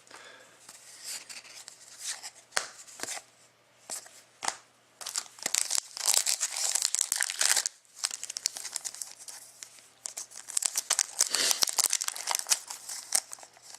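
Hockey card pack wrappers being torn open and crumpled by hand, with crackly tearing and crinkling. A few sharp rips come first, then two longer spells of dense crinkling about five seconds and ten seconds in.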